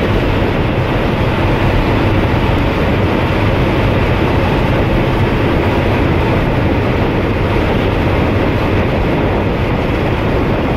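Eicher 20.15 bus engine running steadily at cruising speed with a low drone, mixed with road and wind noise as heard inside the cabin.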